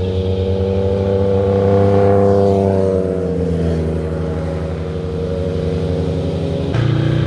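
Motorcycle engine passing close by at speed, loudest about two seconds in, its pitch falling gently as it goes away. Near the end the sound switches abruptly to the deeper, heavier engine note of another motorcycle.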